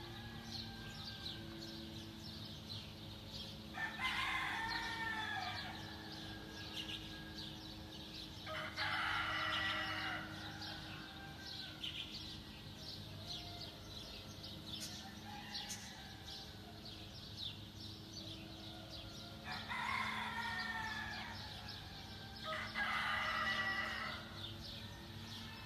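A rooster crowing four times, each crow lasting about two seconds: two crows in the first ten seconds and two more near the end.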